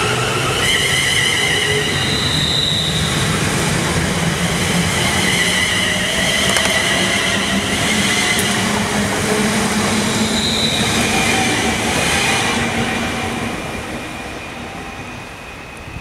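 A train running past on the rails with a loud, continuous rush of wheel and track noise and high whining tones over it. It dies down over the last couple of seconds.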